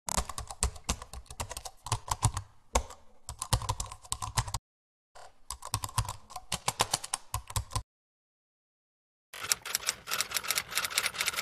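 Computer keyboard typing sound effect: three runs of rapid key clicks with dead silence between them, the last starting about nine seconds in. It goes with on-screen text being typed out letter by letter.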